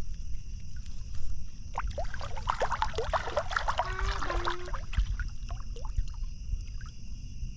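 Water splashing and trickling in a short flurry of small splashes about two seconds in, over the steady high chirring of night insects.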